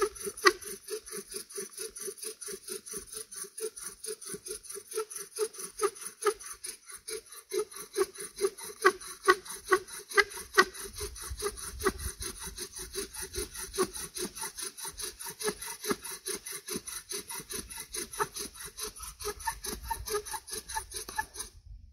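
Bow drill running hard: a wooden spindle turned by a paracord bow grinds and squeaks in the socket of a cedar hearth board at about four strokes a second, the friction building hot dust toward an ember. The strokes stop suddenly near the end.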